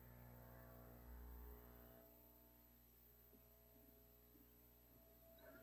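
Near silence: a faint steady hum with no clear activity sounds.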